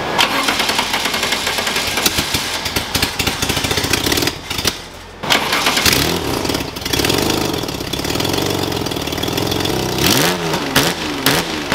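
Honda V6 engine swapped into a VW Beetle fires up and runs through its unfinished open stainless exhaust. It sags briefly about four and a half seconds in, then picks up again and revs up and down several times.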